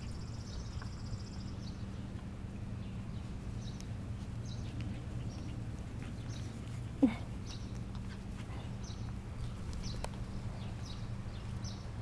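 Cairn terrier puppy giving one short, sharp yelp that drops in pitch about seven seconds in. Scattered short bird chirps and a steady low hum run underneath.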